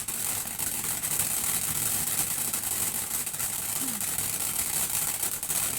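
A lit firework hissing steadily and spraying, with scattered sharp crackles through it.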